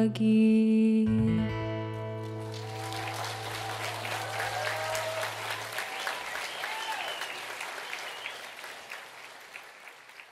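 A live acoustic song ends on a held final chord with acoustic guitar that rings out over the first couple of seconds. Audience applause then breaks out with a few whoops and dies away near the end.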